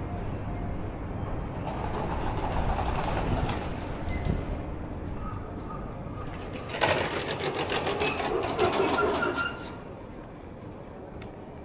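Busy city street ambience. About seven seconds in, a rapid, evenly repeating mechanical rattle lasts about two and a half seconds, then cuts off.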